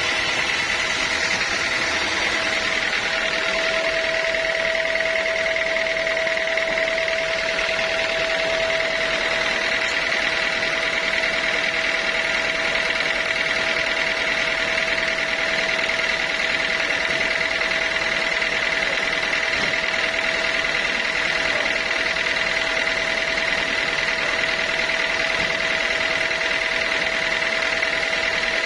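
Sawmill running steadily: a constant machine noise with a held, steady whine, unchanging in level throughout.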